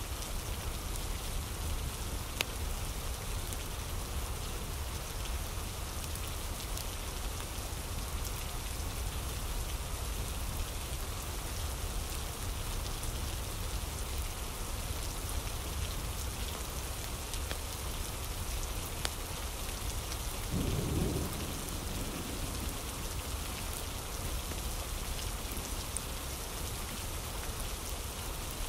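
Steady rain falling, with a short low rumble of thunder about three quarters of the way through and a few faint clicks here and there.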